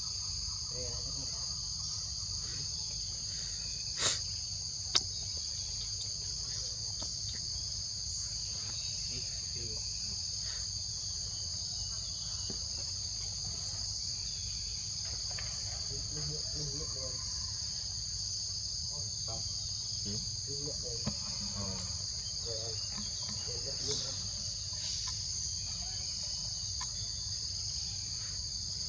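Steady, unbroken high-pitched insect chorus, with two sharp clicks about four and five seconds in.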